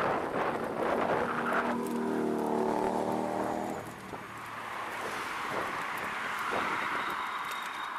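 Road traffic and wind on the microphone while riding along a roadside sidewalk; a passing motor vehicle's engine hums for about two seconds near the start, then the noise eases to a softer rush.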